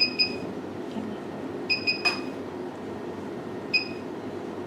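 Short, high electronic beeps from the GW139 facial machine's control panel as its time and strength settings are pressed: two quick beeps, three more with a tap about two seconds in, and a single beep near the end, over a steady low hum.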